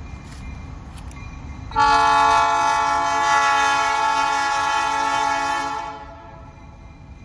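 EMD SW1500 diesel switcher's air horn sounding one long, steady chord of about four seconds, starting about two seconds in. The approaching locomotive's engine rumbles faintly before and after it.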